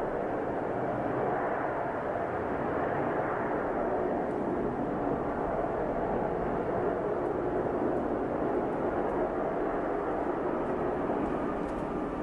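Twin-engine jet airliner on final approach, its turbofan engines giving a steady, continuous rumble.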